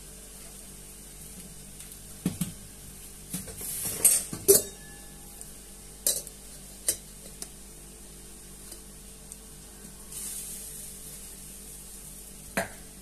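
Kitchen clatter: a scattering of sharp knocks and clinks of dishes, pots and utensils being handled, loudest about four seconds in. A brief hiss comes about ten seconds in, over a faint steady hum.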